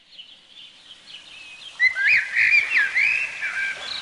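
Birdsong: many short whistled chirps gliding up and down over a soft steady hiss, fading in and growing much louder about two seconds in.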